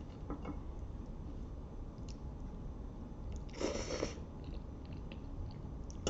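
Close-up mouth sounds of chewing spaghetti: soft wet chewing with small clicks, and one louder noisy burst a little past halfway.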